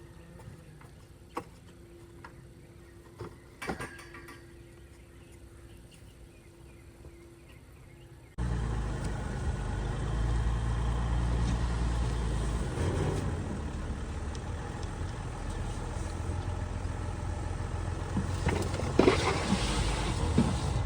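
A few faint clicks and knocks over near-quiet ground, then an abrupt change about eight seconds in to the steady low rumble of a pickup truck running.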